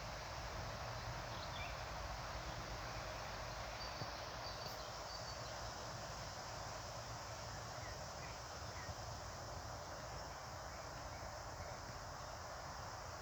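A few faint, scattered bird chirps and one short high note over a steady outdoor hiss.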